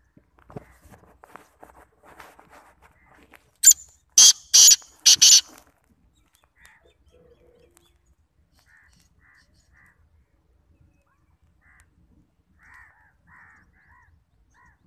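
Black francolin calling: a loud burst of five short, harsh notes about four seconds in, followed later by a few soft, quiet notes.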